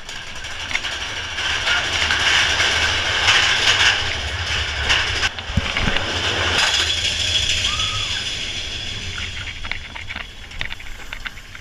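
Big Thunder Mountain Railroad mine-train roller coaster running along its track: a rushing roar of wheels and air with a low rumble underneath, loudest in the first half and easing off, with a few clicks near the end.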